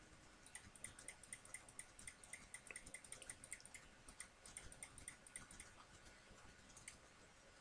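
Faint, rapid computer mouse clicks, about five a second in a steady run, stopping about three quarters of the way through.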